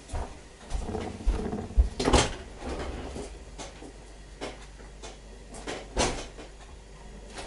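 Kitchen clatter: a cooking pot and utensils being handled, with scattered knocks, loudest about two seconds in and again about six seconds in.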